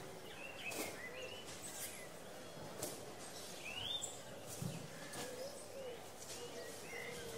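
Daytime town-square ambience soundscape: small birds chirping in short rising and falling calls over a steady background murmur, with a few faint clicks.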